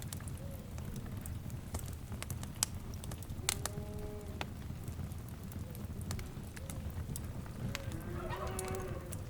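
Fireplace fire crackling with scattered sharp pops over a steady low rumble. Two drawn-out animal calls of about a second each come through, one around four seconds in and one near the end.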